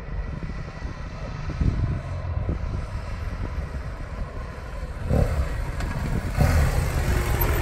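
Motorcycle engine running at low revs as the bike rides slowly closer, its low rumble growing louder toward the end.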